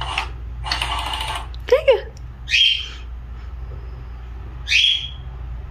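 Crazy Donut electronic cat toy running, giving two short chirp-like sounds about two and a half and five seconds in, over a steady low hum. A brief hissy rush comes near the start, and a short rising-and-falling call about two seconds in.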